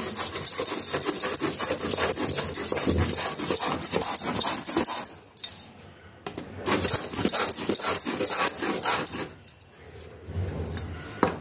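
A stone batta rubbed and rolled back and forth on a sil grinding slab, grinding roasted flaxseed and coriander leaves into a chutney paste: a gritty stone-on-stone scraping, stopping briefly about five seconds in and again near the end.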